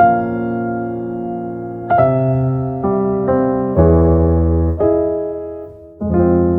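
Slow, gentle piano music: chords struck one after another and left to ring out and fade, with a deeper chord about four seconds in.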